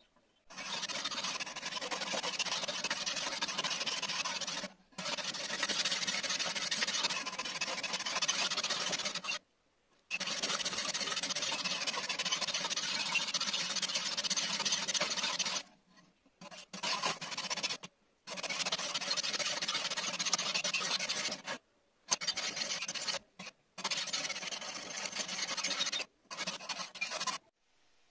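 Metal file scraping along a steel knife blank in a guided filing jig. It goes in long rasping strokes of four to five seconds with brief breaks between them, then shorter, choppier strokes toward the end.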